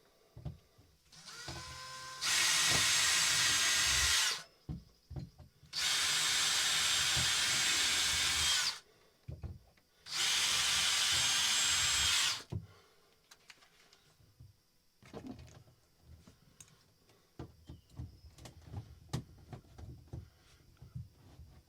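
Power drill-driver running in three bursts of two to three seconds each, with a short spin-up before the first: driving the stainless screws that hold a fibreglass boat's inspection port down. Faint clicks and handling noise follow.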